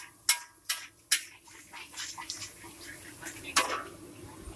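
A cooking utensil clanking against cookware while the finished fried Mie Aceh noodles are dished up. Three sharp knocks come in quick succession in the first second and a half, then one more about three and a half seconds in.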